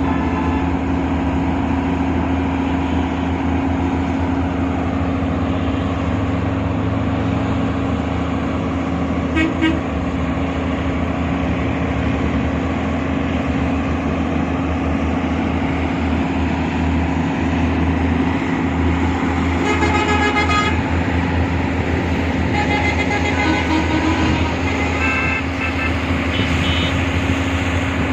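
Excavator's diesel engine running steadily under load, with vehicle horns tooting several times: a short toot, a longer blast about two-thirds in, then a string of shorter toots at different pitches near the end.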